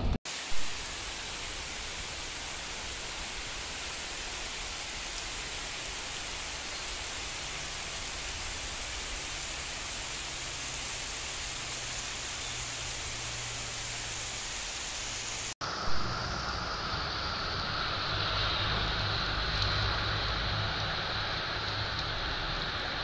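Heavy downpour: a dense, steady hiss of rain falling on leaves, paving and puddles. The recording cuts about two-thirds through to another stretch of equally heavy rain, and there is a brief knock just after the start and another just after the cut.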